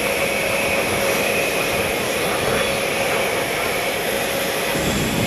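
Steady jet aircraft noise with a faint high whine running through it, over the low chatter of a crowd.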